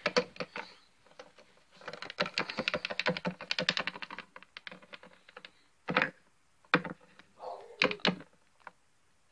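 Hard plastic Littlest Pet Shop figurines clicking and clattering as a hand moves them about and sets them down on plastic toy furniture. A quick run of light clicks comes from about two to four and a half seconds in, followed by a few single clicks.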